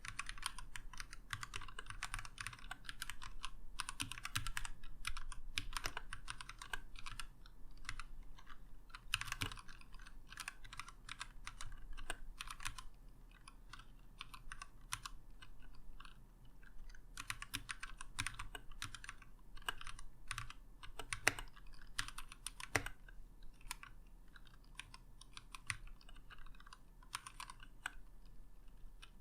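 Typing on a Keychron K6 mechanical keyboard with Gateron Red linear switches: a run of keystroke clicks coming in fast bursts with sparser stretches between them. It is a recording for comparing how the keyboard sounds stock and after sound dampening, switch lubing and switch films.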